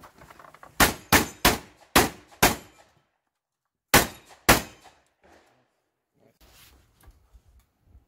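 Seven gunshots from a long gun: five in quick succession, a pause of about a second and a half, then two more.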